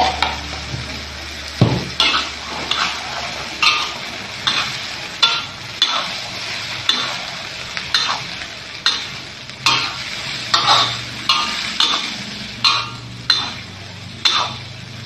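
Yellow noodles stir-fried in a hot wok: a metal spatula scrapes and tosses them about once a second over a steady sizzle of frying.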